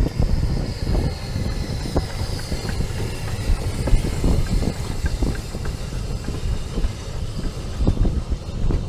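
Double-headed narrow-gauge steam train, led by the Hunslet locomotive Linda, running past and drawing away. Its wheels click irregularly over the rail joints and points over a steady low rumble.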